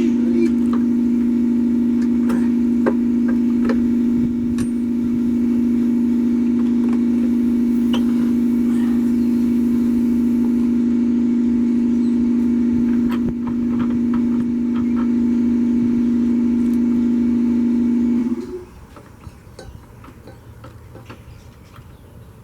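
Husqvarna zero-turn mower's engine running at a steady speed, then shutting off abruptly about 18 seconds in, followed by a few light clicks.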